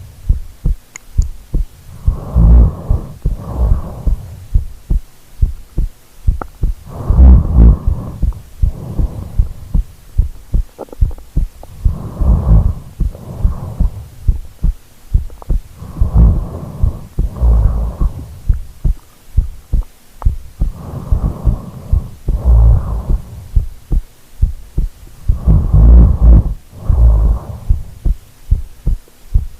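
Loud snoring, each snore a rattle of fine pulses. The snores come in pairs, about one pair every four to five seconds.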